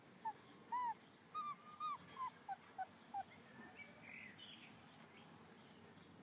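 Nursing puppies squeaking: a run of about eight short, high whimpers in the first three seconds, getting shorter and lower toward the end, then a few fainter squeaks about four seconds in.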